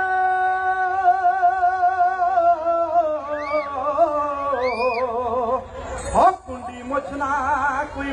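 Male voice singing a long held note with slow vibrato, then wavering ornamented lines, with a quick upward slide about six seconds in.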